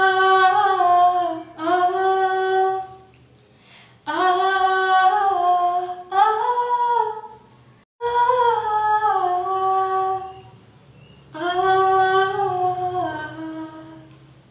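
A young female voice singing solo: a wordless vocal line on 'ah', in about six held phrases that step up and down in pitch, with short breaths between them.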